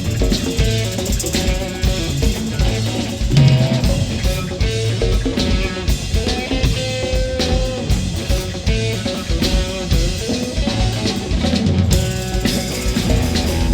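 A live rock band playing an instrumental passage: electric guitar over a steady drum-kit beat with bass.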